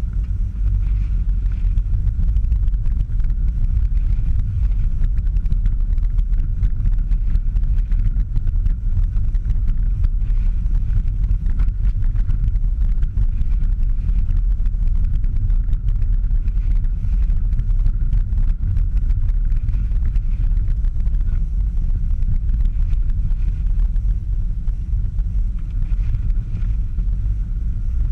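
Car driving on snow-covered streets, heard from inside the cabin: a steady low rumble of engine and tyres.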